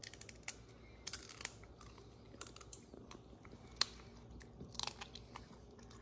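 Serval chewing raw quail from a hand: irregular sharp crunches and clicks of its teeth working the meat, in short clusters, the loudest a little under four seconds in.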